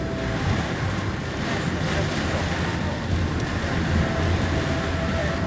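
Steady roar of heavy storm wind and rain, with a low vehicle rumble underneath.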